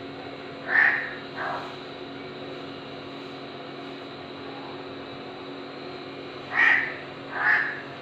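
Crow cawing: two short caws about a second in, the second fainter, and two more near the end, over a steady background hum.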